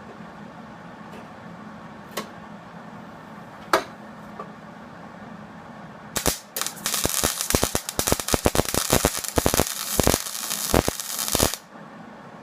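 MIG welder laying a plug weld on a truck's replacement rocker panel: a short burst of arc crackle, a brief pause, then about five seconds of steady, loud crackling that stops abruptly. A few sharp single clicks come before it.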